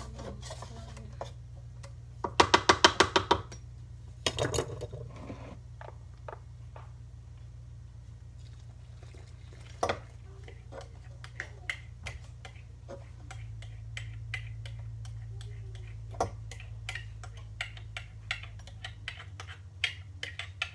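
Stand mixer motor running with a steady low hum while the ube dough is being mixed; it cuts off near the end. Scattered clicks and clinks of a spatula and a container against the steel bowl, and a brief loud rattling burst about two seconds in.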